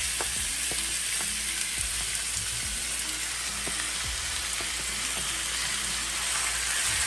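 Cubes of seasoned raw chicken breast sizzling in hot avocado oil as they are dropped into a pan: a steady frying hiss with a few light taps as pieces land.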